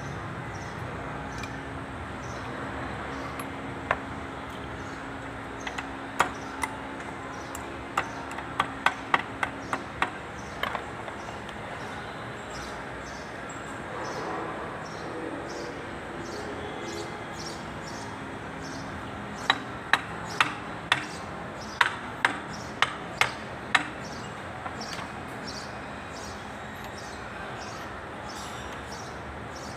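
Sharp metal-on-metal clinks and taps as the cast hub housing of a Kubota L2201 front axle is worked onto its shaft: a run of about eight quick ringing taps, then after a pause a second run of about nine more near two-thirds of the way in.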